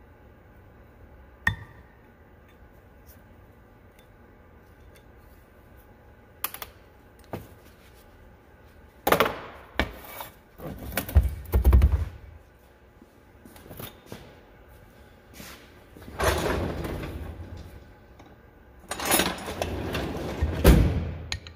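A heavy cast iron planter closing wheel being handled on a steel workbench. A sharp metallic click comes about a second and a half in as the snap ring is worked out of the hub. Later come bursts of scraping and thunks as the wheel is turned over and set down, and a steel punch is set into the hub near the end.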